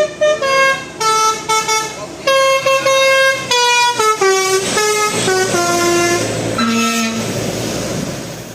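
Bus telolet horn, a Basuri multi-tone horn, playing a melody of short stepped notes that ends in a falling run of notes. It then dies away into a rushing noise.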